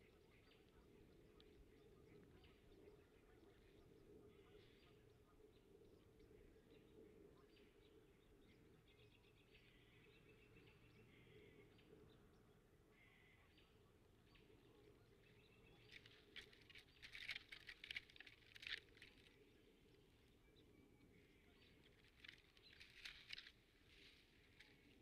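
Faint crackling and rustling of nest sticks and dry grass as a bald eagle shifts and steps on its nest, in two short spells about two-thirds of the way in and near the end, over a low steady hum.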